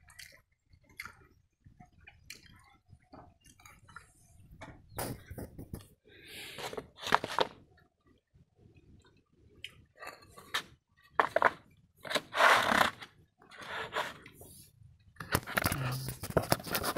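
Eating pakhala by hand from steel bowls: scattered clinks and scrapes of the bowls, the hand mixing and scooping the watery rice, and chewing, in short irregular bursts, with a denser run of clattering and handling noise near the end.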